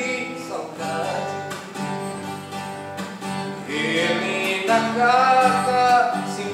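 Acoustic guitar playing a Brazilian moda de viola, with a man singing over it, his voice strongest in the second half.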